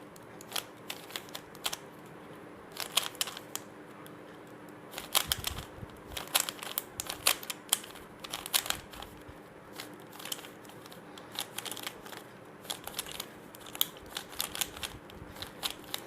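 Plastic 3x3 Rubik's Cube being turned by hand during a solve: irregular runs of quick clicks and clacks as the layers are twisted, with short pauses between runs.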